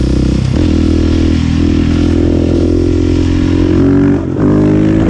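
Husqvarna 701 Supermoto's single-cylinder four-stroke engine pulling hard while riding, its pitch holding steady then climbing. A bit after four seconds in the revs dip briefly and then pick up and rise again.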